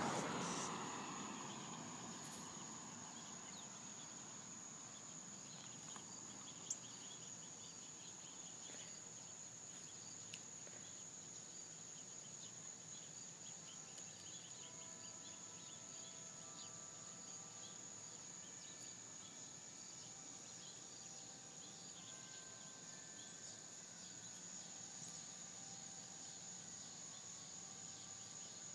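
A church bell's last ringing fading away over the first two or three seconds, leaving a faint, steady, high-pitched chirring of insects such as crickets. A single sharp click sounds about seven seconds in.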